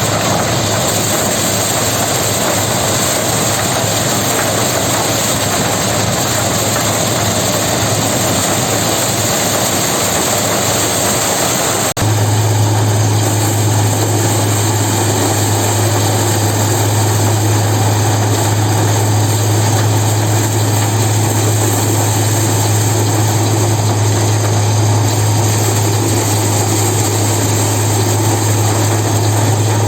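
An engine-driven machine running steadily with a low hum. About twelve seconds in, the sound changes abruptly to a louder, stronger low hum.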